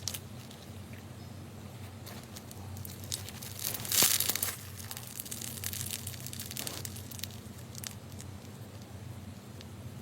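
Hands squeezing and poking slime, giving small crackling pops and crinkles. A louder crunchy squish comes about four seconds in.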